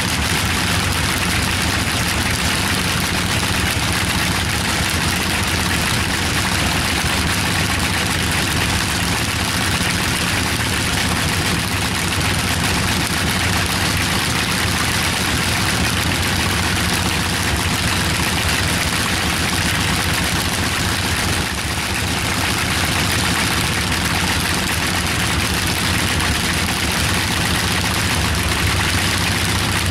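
Bristol Hercules fourteen-cylinder, double-row sleeve-valve radial engine running steadily on a test stand, with one brief slight dip in level about two-thirds of the way through.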